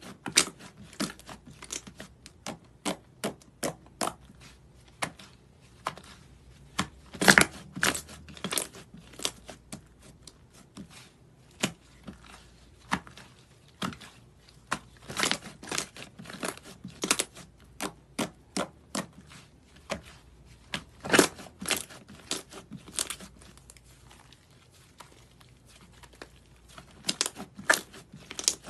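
Pink slime being kneaded, stretched and pressed by hand, giving off an irregular run of sharp pops and clicks, with a few louder clusters a quarter and three quarters of the way through.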